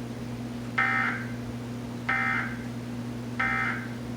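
Emergency Alert System End of Message (EOM) data burst: three short, identical warbling digital bursts about 1.3 seconds apart, over a steady low hum. It marks the end of the required monthly test message.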